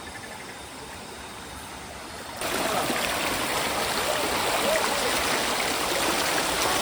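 Rushing river water, a steady hiss that jumps abruptly louder about two and a half seconds in.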